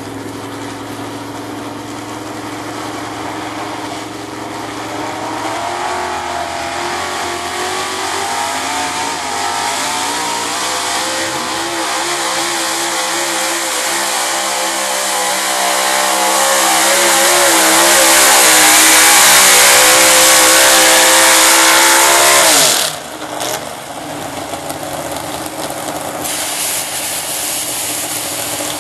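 Ford pulling truck's engine at full throttle hauling a weight-transfer sled: its revs climb and it grows louder for about twenty seconds. The note then drops abruptly as the throttle is released at the end of the pull, and the engine settles to a lower running note.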